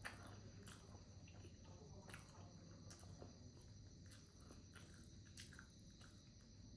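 Near silence: faint room tone with a few soft, irregular clicks and a faint steady high hum.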